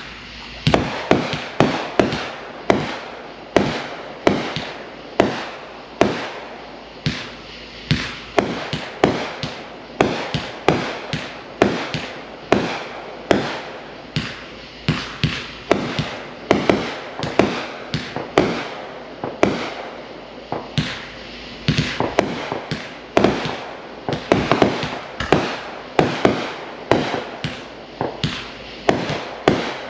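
Fireworks going off: a continuous string of sharp bangs, about one or two a second, each dying away quickly.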